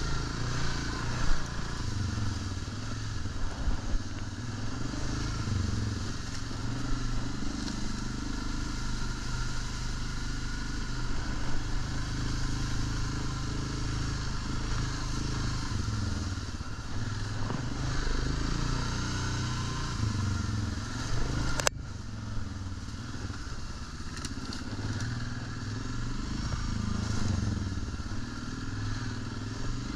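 ATV engine running as the quad rides along a dirt trail at low speed, its note rising and falling slightly with the throttle. There is one sharp click about two-thirds of the way through.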